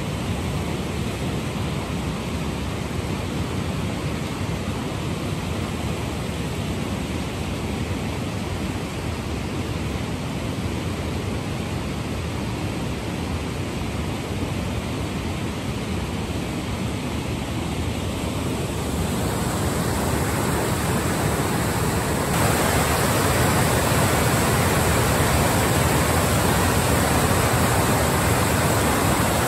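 River water pouring over a weir and churning below it in white-water rapids: a steady roar of rushing water that swells about two-thirds of the way through and steps up louder shortly after.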